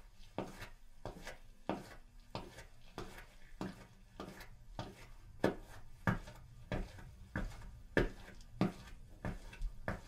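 Footsteps walking at a steady pace, about three steps every two seconds, each a short sharp tap, with some steps landing harder than others.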